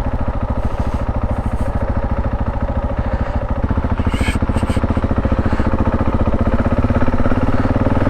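Husqvarna 701 Enduro's single-cylinder engine running with a steady, even thump, its pitch rising a little near the end as the bike gets under way. Two short high sounds come about four seconds in.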